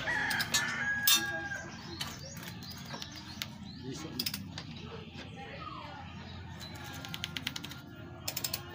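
Ratchet wrench clicking as it is worked back and forth on a three-cylinder engine's crankshaft pulley to turn the engine over by hand, with quick runs of rapid clicks near the end.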